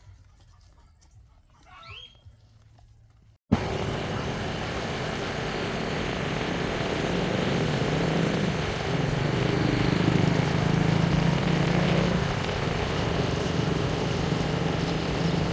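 After about three and a half seconds of faint quiet, a sudden cut brings in a small motorcycle engine running under way, with heavy wind rush over it. The engine note shifts slightly partway through.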